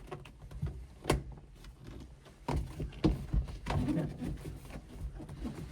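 Kilmat sound-deadening sheets being handled and pressed onto a car's floor pan: a sharp click about a second in, then scattered knocks and rustling.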